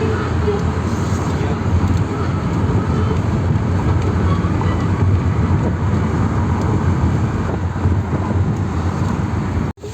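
Steady low road and engine rumble of a moving vehicle, heard from inside as it travels, cutting out for a moment just before the end.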